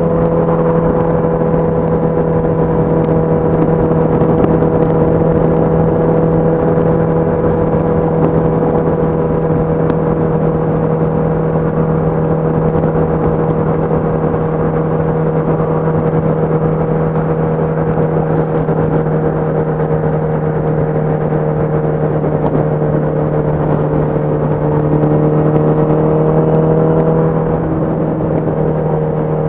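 Honda CBR1000RR SP2 Fireblade's inline-four engine through its stock exhaust, running steadily at cruise over a haze of wind and road noise. Its pitch sinks slowly, and near the end it briefly rises and then eases off.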